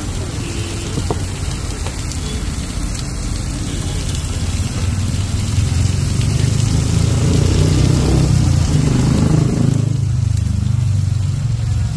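A steady low engine-like rumble that swells in the second half, with a fainter hiss above it.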